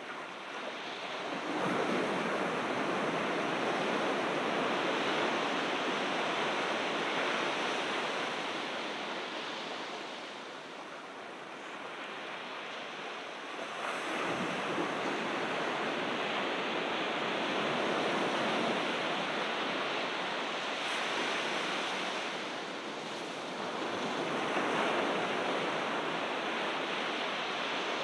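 Ocean surf breaking and washing ashore, swelling louder three times, about ten seconds apart.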